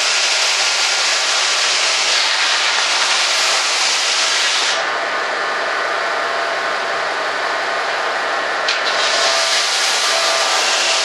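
Electric power tool sanding the rough mill marks off a CNC-cut foam part, a loud, steady hiss. The high part of the hiss drops away for about four seconds in the middle, then comes back with a short click.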